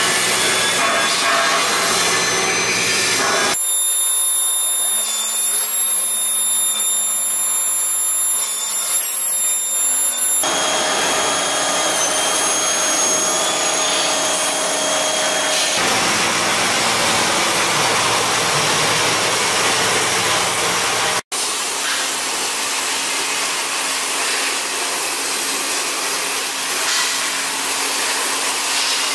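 Steady, loud machine noise from steel fabrication: a CNC beam drilling machine drilling into steel with coolant spraying, then a CNC cutting machine cutting steel plate with its torch. The sound changes abruptly several times, with a brief drop-out about two-thirds of the way in.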